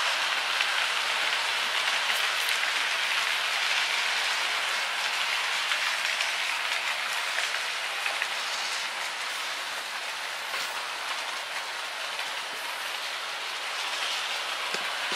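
Hornby OO gauge model trains running on the layout: a steady rushing rumble of small wheels on the rails and the locomotive motors as the coaches pass, easing slightly in the second half and building again near the end.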